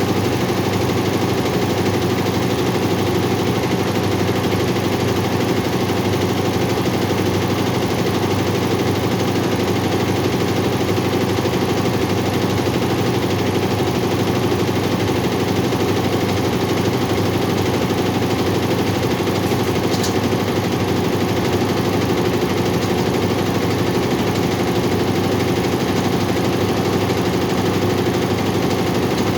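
Four-head computerized embroidery machine running, its needles stitching in a steady, fast mechanical rattle.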